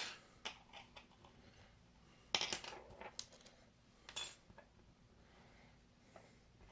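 Light metallic clicks and clinks of small hand repair tools working on the opened iPhone's internal parts, a few scattered taps with the loudest cluster about two and a half seconds in.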